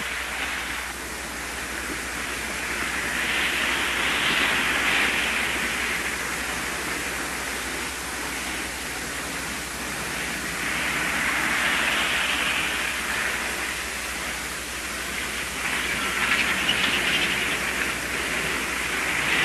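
Steady outdoor rushing noise that swells and eases off about three times, with a few faint ticks near the end.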